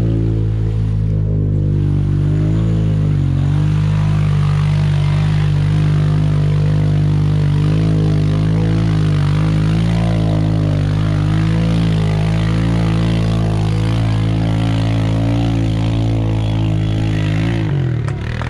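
An off-road vehicle's engine held at steady high revs, loud and even with slight wavers, as it pulls under load through a mud pit. It drops off near the end.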